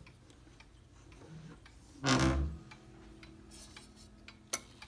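Ansonia pendulum wall clock ticking faintly, with a loud knock about two seconds in that leaves a low ringing tone fading away, and a sharp click near the end.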